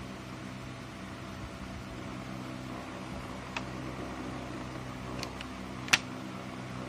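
Steady low machine hum with light clicks of a plastic transparency sheet being pressed and handled, and one sharper click about six seconds in.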